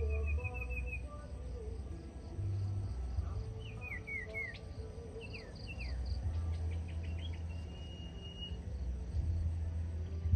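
A caged decoy huýt cô songbird singing: a quick trill, then sharply falling slurred whistles, a fast run of notes and one held whistle.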